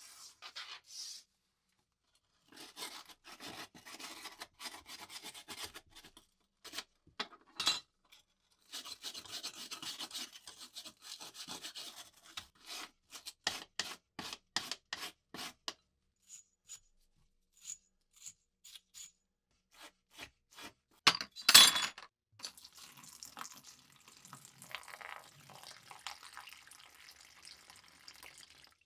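Small metal parts of a 1930s SOLO squeeze lighter handled, scraped and clicked against a wooden floor, with one sharp knock about three quarters of the way through. Near the end, rust remover is poured into a plastic tub over the parts for a soak.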